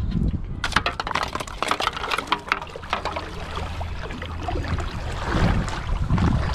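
Shallow pond water sloshing and splashing around wading legs and hands, with a quick run of clicks and crackles from handling a plastic bottle trap in the first few seconds.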